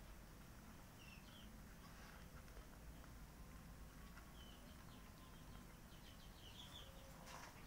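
Near silence with the faint crunching of a cat chewing dry kibble, a few soft crunches scattered through and a slightly sharper one near the end.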